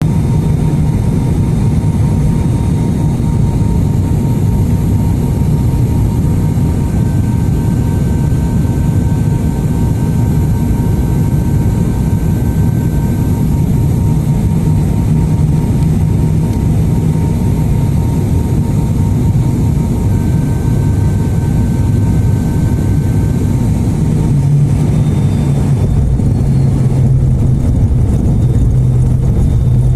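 ATR 72-600's turboprop engines and propellers making a loud, steady drone during landing, with a faint steady whine above it. The low hum shifts slightly lower near the end.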